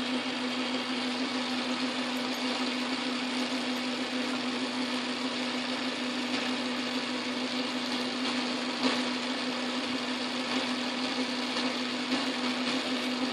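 Metal lathe running with a steady hum while a twist drill in the tailstock chuck bores into the spinning workpiece. A single light click comes about nine seconds in.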